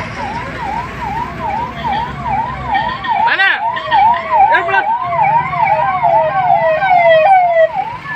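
Electronic emergency-vehicle siren in a fast yelp, rising sweeps repeating about two and a half times a second. A second falling sweep overlaps it for a few seconds in the middle.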